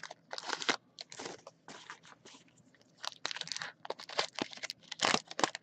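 Trading-card pack wrappers being torn open and crinkled by hand: irregular crackles and crunches, with a brief lull about two seconds in.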